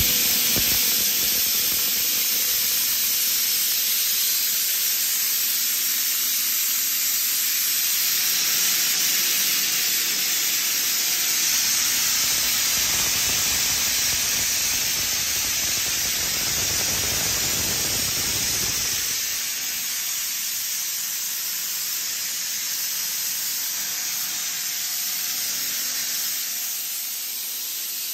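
Kaeser ASD 37 22 kW rotary screw air compressor running on load with its covers removed: a loud, steady rushing hiss of air with a faint hum under it. It eases off slightly about two-thirds of the way through.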